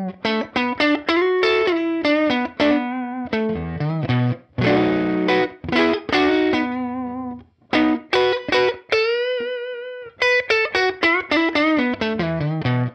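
Electric Telecaster played through a Universal Audio UAFX Woodrow '55 amp-emulator pedal on its 'Single Coil Neck Pickup' preset: a lick of picked single notes and chords, with one note held and shaken with vibrato a little past the middle. The tone is sweet and organic.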